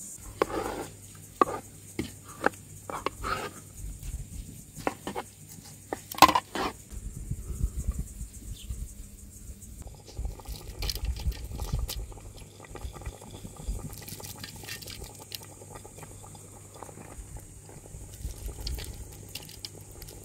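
Dishes clinking and knocking several times, then handfuls of parboiled rice pattering into a steel pot of mutton broth, with a low rumble underneath.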